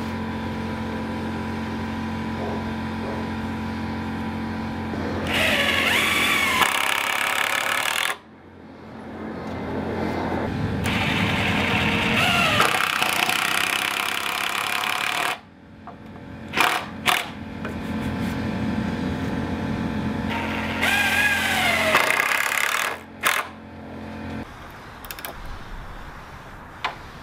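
Handheld power driver running a screw into a timber pergola brace in three long runs. Its motor pitch falls as the screw bites and the driver slows under load, with a few sharp clicks between runs.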